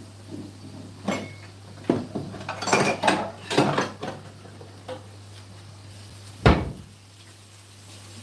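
Kitchen clatter of plates, pans and cutlery being handled: a run of separate clinks and knocks, busiest through the middle, then one loud knock about six and a half seconds in.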